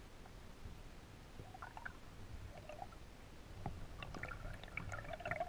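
Muffled underwater sound picked up by a submerged GoPro: a low steady rumble of water around the housing. Faint, high, chirpy, wavering sounds come in about a second and a half in and grow louder near the end.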